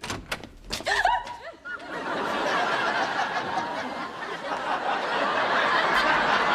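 Sitcom studio audience laughing: a few sharp clicks and scattered reactions at first, then about two seconds in a long, steady wave of crowd laughter.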